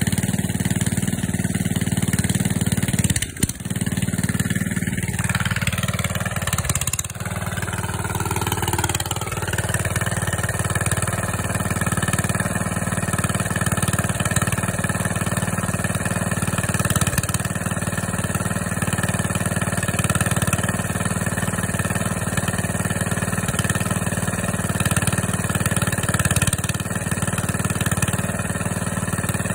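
Diesel engine running steadily, with a brief dip in the sound about three seconds in and its pitch wavering between about five and ten seconds in before it settles.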